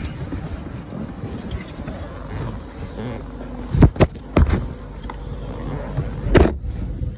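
Muffled handling noise from a covered phone microphone: a steady low rumble with rubbing, broken by sharp knocks, a cluster about four seconds in and another shortly before the end.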